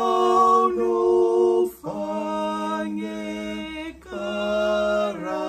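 A man and a woman singing a Marian hymn together, unaccompanied, in long sustained notes with short breaths between phrases.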